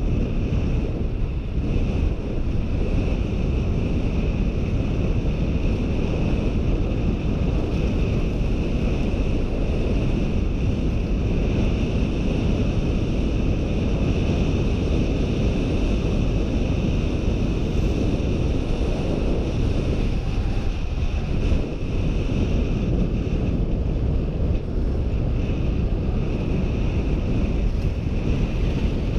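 Wind buffeting a GoPro Hero 4's microphone on a bicycle coasting downhill at speed: a steady, loud low rushing, with a faint steady high hum above it.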